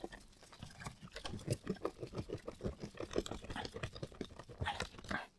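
Rapid, irregular run of small clicks and scrapes from a plastic toy phone's housing being handled and put back together, several clicks a second.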